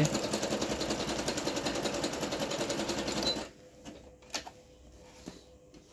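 Singer mon ami Nu computerized sewing machine running a picot stitch at a steady rapid pace, then stopping abruptly about three and a half seconds in. A few light clicks follow.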